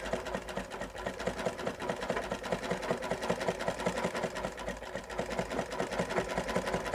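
Sewing machine running steadily, stitching a seam with a fast, even rhythm of needle strokes.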